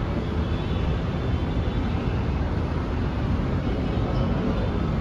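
Steady noise of distant city traffic from a busy road far below, an even wash with a heavy low rumble.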